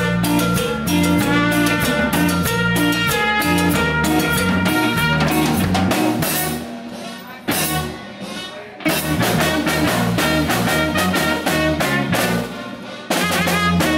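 Live cumbia band playing: trumpet over electric guitar and drum kit with a steady beat. The band pulls back for a couple of seconds about halfway through, with one sharp hit, then comes back in full.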